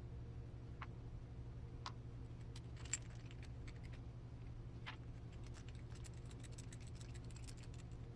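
Faint, scattered clicks and taps of small plastic gearbox parts, bearings and screws being handled and fitted together by hand, with a sharper click about three seconds in and a quicker run of small clicks near the end, over a steady low hum.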